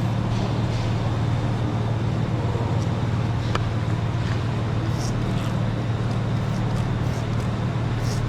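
A steady low machine hum runs throughout, with a few faint clicks and taps from hand work over it.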